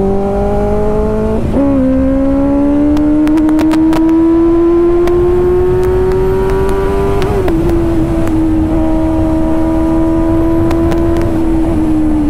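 Benelli 600i's inline-four engine through an SC Project slip-on exhaust, pulling hard at highway speed. The note climbs steadily, drops at upshifts about a second and a half in and again about seven seconds in, holds steady, then eases off near the end. Wind rushes on the microphone underneath.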